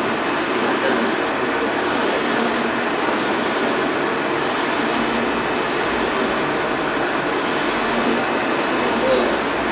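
UV flatbed inkjet printer running, its print-head carriage with the lit UV curing lamp moving back and forth over a clear plastic sheet. The steady mechanical whirr carries a hiss that swells and drops in a regular cycle of a little over a second.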